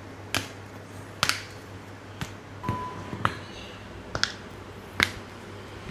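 A series of sharp clicks, about one a second, six in all, with a short beep just before the middle.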